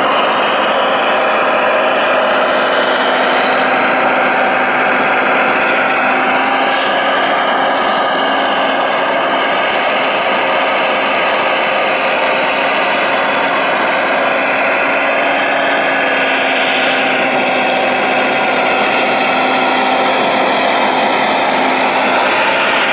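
Hydraulic pump and drive of a radio-controlled Liebherr R970 SME model excavator whining steadily while it works its boom and log grapple. The whine's pitch dips and rises now and then as the load changes.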